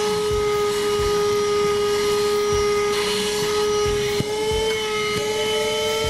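Handheld car vacuum cleaner running steadily with a high motor whine and a rush of suction as its nozzle works over a rubber car floor mat, with a few low knocks of the nozzle against the mat. A small click about four seconds in, after which the whine sits slightly higher.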